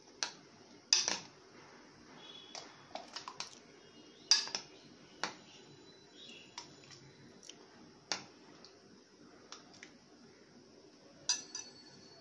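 Steel spoon clinking and scraping against a serving bowl and a plastic cup as a milky dessert is spooned out, in scattered sharp clinks, the loudest about a second in and just after four seconds in.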